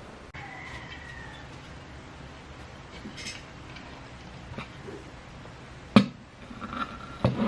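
Quiet room tone with a faint thin whistle-like tone near the start and a single sharp knock about six seconds in.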